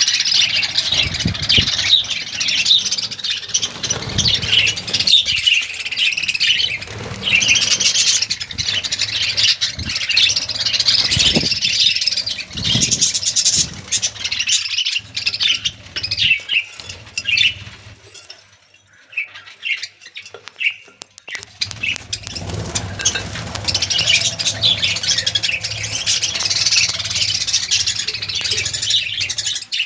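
A colony of budgerigars chirping and chattering all at once in dense, overlapping calls, easing off for a few seconds about two-thirds of the way through.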